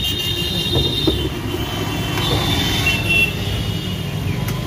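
Electric JEEVA mini sugarcane juice machine running, crushing a sugar-cane stalk pushed into its rollers by hand: a steady low motor hum with a few short clicks, and high whining tones at times.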